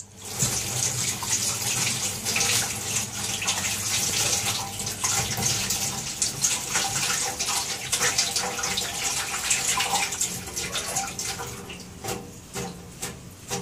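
Kitchen tap running into a stainless steel sink while a peeled onion is rinsed under the stream by hand. The flow dies down near the end, leaving a few light knocks.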